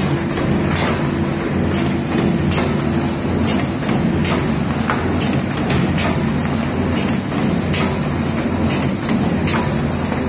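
TL 930RD2 automatic paper-feed hot foil stamping machine running: a steady low mechanical hum with a sharp clack repeating about every three-quarters of a second.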